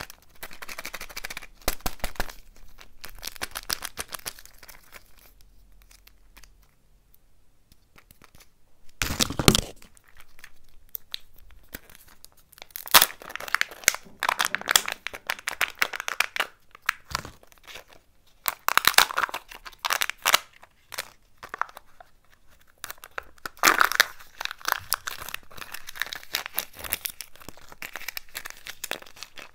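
Kinder Joy plastic egg being handled and opened: its foil seals peeled and torn off with crinkling and tearing in separate bursts, and a sharp snap about nine seconds in.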